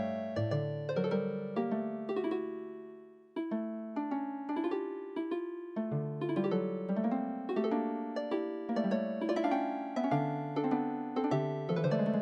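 Instrumental background music played on piano, with notes struck one after another. Just after three seconds in the music fades out, then a new phrase begins.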